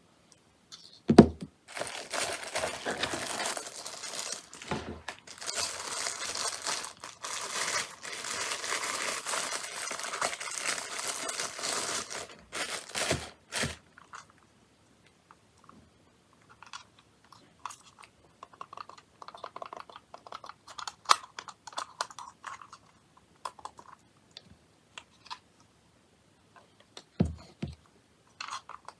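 Packaging being torn open and crinkled for about ten seconds, with a few knocks, followed by scattered light clicks and taps as the contents are handled.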